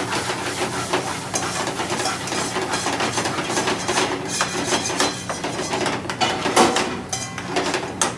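Curry base of onions, peppers, spices and tomato puree sizzling in a frying pan on a gas burner while a metal spoon stirs it, scraping and clacking against the pan again and again.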